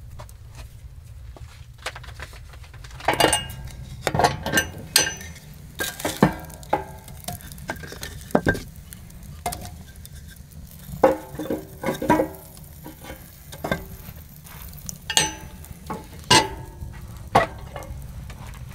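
Metal clinks and knocks of a utensil against a metal cooking pot, irregular and a dozen or more, some ringing briefly, over a steady low rumble.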